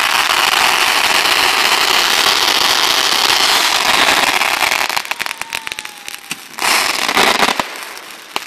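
Backyard consumer fireworks going off: a dense, steady crackling for about five seconds, then scattered sharp cracks and a loud burst of crackling near the end.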